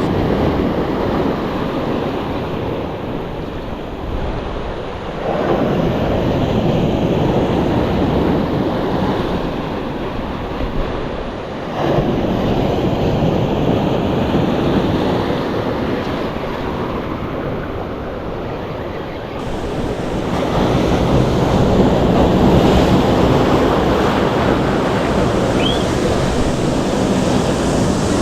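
Ocean surf breaking and washing, swelling in surges several seconds apart, with wind buffeting the microphone.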